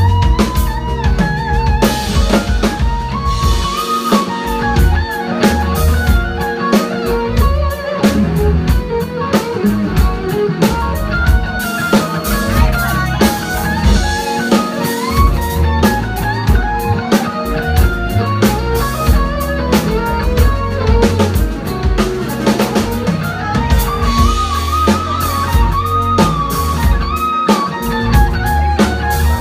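Live R&B band playing an instrumental passage: electric bass and drum kit keeping a steady groove, with a melody moving above them, loud and continuous.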